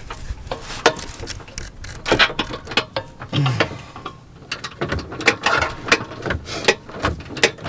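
Hand socket ratchet clicking in short, irregular runs, with metal tool clinks, as a bolt on a car's rear camber arm is worked.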